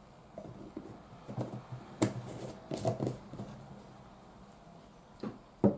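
A metal spoon scooping powder from a glass jar, with short clinks and knocks of spoon and jar about two and three seconds in and two more knocks near the end.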